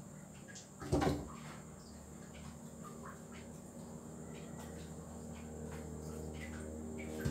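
Vegetables being cut and handled at a kitchen counter: one sharp knock about a second in, then scattered light clicks, over a low hum that grows louder toward the end.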